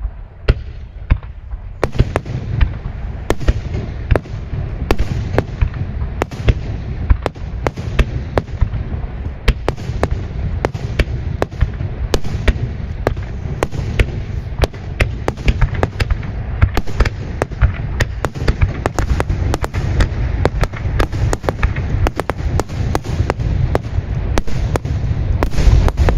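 Aerial fireworks going off in a rapid barrage. A few separate sharp bangs of bursting shells give way, about two seconds in, to a dense run of bangs, several a second, over a continuous low rumble, and the barrage grows louder near the end.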